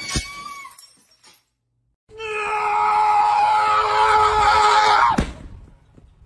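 A loud, steady scream held at one pitch for about three seconds, ending in a quick drop in pitch.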